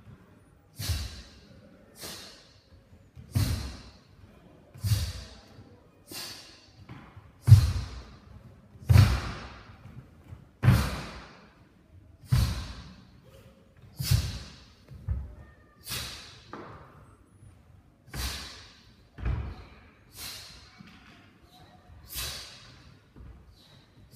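A taekwon-do pattern performed solo: bare feet thudding on a wooden floor and the dobok snapping with each technique, about one sharp hit a second, each followed by a short echo.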